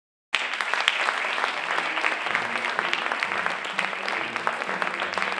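An audience applauding, many hands clapping at once, cutting in suddenly from silence.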